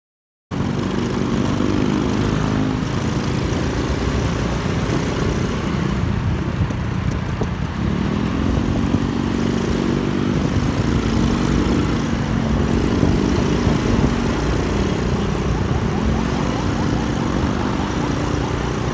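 Small motorcycle engine running under way, its note rising and falling several times with the throttle, over steady wind and road noise.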